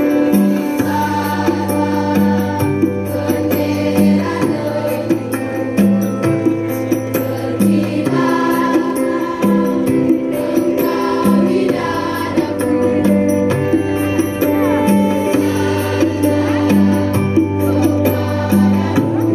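A large massed choir of school students singing an Indonesian patriotic song in unison over instrumental accompaniment with a low sustained bass and a steady percussive beat.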